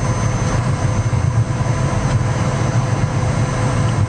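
Steady drone of a private jet heard from inside the cabin: engine and air noise with a deep hum and a faint steady high whine.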